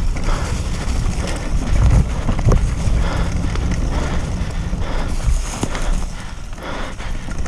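Mountain bike riding fast downhill over a leaf-covered dirt trail: wind buffeting the microphone, tyres rolling over leaf litter, and the bike knocking and rattling irregularly over bumps.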